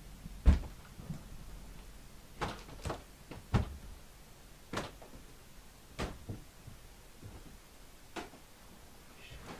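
Footsteps: a string of dull thuds at uneven spacing, about eight in all, the loudest about half a second in.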